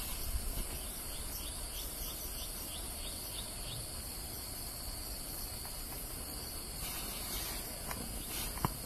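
Steady high-pitched chorus of insects trilling in a tropical forest at dusk. A run of short high chirps, about two a second, comes in the first few seconds, and a single sharp click sounds near the end.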